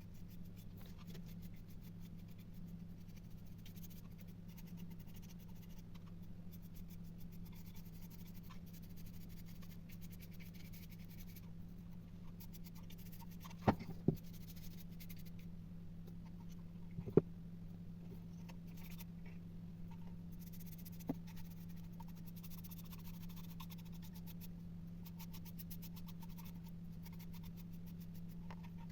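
Faint steady scratching of something being rubbed over a surface, over a steady low hum, with a few sharp clicks about halfway through.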